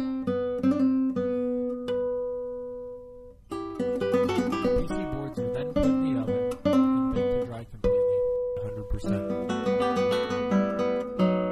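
Background music: acoustic guitar playing plucked notes and chords, which die away about three seconds in and then pick up again.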